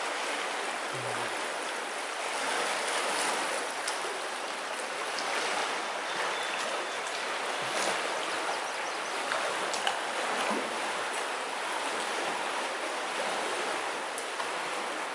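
Steady rushing of a stream or river running over rocks.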